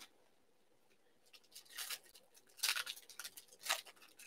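Trading cards and foil card-pack wrappers being handled: several short, faint crinkles and snips.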